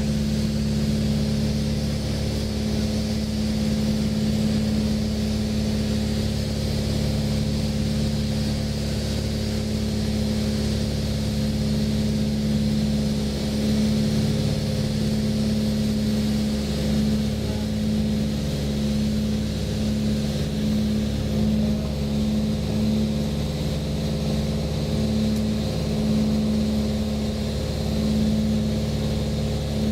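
The twin piston engines and propellers of a Cessna 310, heard from inside the cockpit, running in a steady, loud drone. About halfway through, a slow regular throb sets in over the drone.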